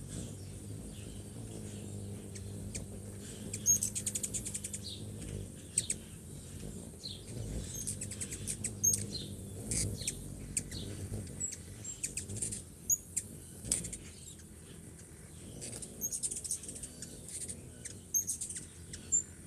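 Several hummingbirds chittering around a feeder: sharp, high chip calls and quick rattling twitters, irregular and overlapping, over the low hum of their wings.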